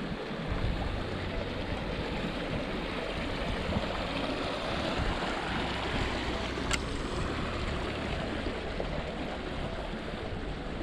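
Small mountain stream running over little cascades: a steady rush of flowing water, with one sharp click about seven seconds in.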